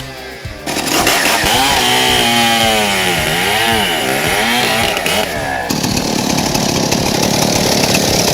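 Stihl 090 two-stroke chainsaw running, its engine pitch dipping and rising for several seconds. About six seconds in it changes to a steady, rougher sound.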